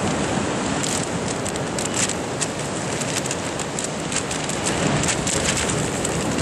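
Steady wash of surf and wind at the sea wall, with a rapid pattering of light ticks from about a second in until near the end.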